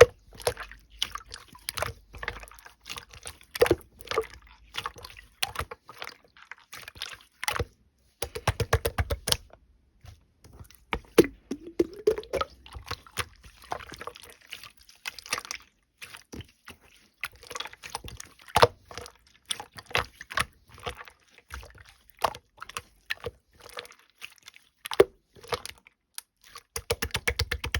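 Slime being squished, stretched and folded by hand, with sticky wet clicks and pops throughout and two spells of quick crackling pops, about eight seconds in and near the end.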